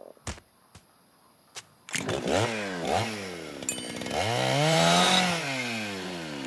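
A cartoon character's wordless voice effect: a few soft clicks, then about two seconds in, two quick falling calls, followed by one long call that rises and falls.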